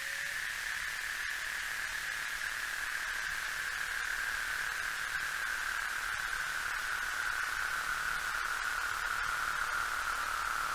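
Electronic filtered-noise sweep: a steady hiss whose band slowly falls in pitch and grows gradually louder.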